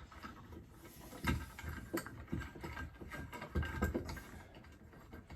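Scattered light metal clicks and knocks, with a few duller thumps, as washers, a polyurethane bush and a threaded home-made bush press are fitted together and done up by hand.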